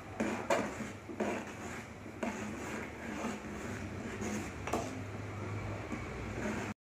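A metal spoon scraping and clinking against the sides of an aluminium pot at irregular intervals as semolina is stirred into hot water.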